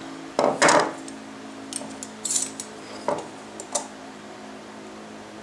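A turned wooden cylinder and a steel combination square being handled and set down on a cast-iron table saw top: two loud knocks about half a second in, then a few lighter clicks and a short scrape as the square is positioned against the cylinder, over a steady low hum.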